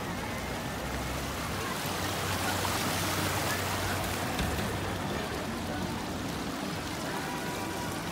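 Water jets of a small street fountain splashing, loudest a few seconds in, over the chatter of many voices.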